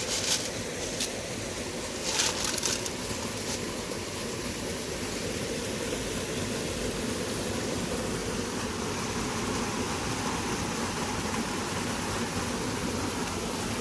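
Shallow stream water running steadily, an even rush with no letup. A few short clicks come within the first three seconds.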